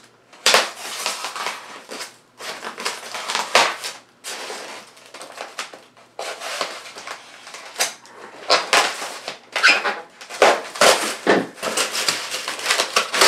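Kershaw Blur folding knife slicing packing tape along the seam of a styrofoam shipping box, with irregular scraping and crunching of the foam as the box is worked open.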